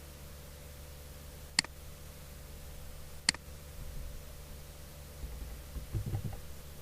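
Two sharp computer mouse clicks about two seconds apart, over a steady low hum, followed near the end by a few soft low thumps.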